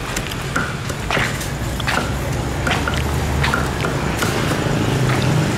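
Cleaver chopping grilled chicken on a thick wooden chopping block: a string of sharp, unevenly spaced knocks, a little more than one a second. Underneath is a steady low rumble of street traffic.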